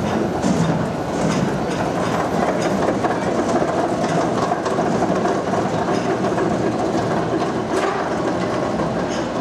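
Vekoma roller coaster train being hauled up the chain lift hill: a steady mechanical rattle from the lift with repeated clacks, about one every second or less, of the train passing over the track's anti-rollback ratchet.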